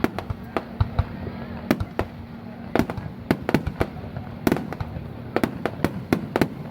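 Aerial fireworks going off: about twenty sharp bangs and cracks at uneven intervals, some in quick clusters, over a faint steady low hum.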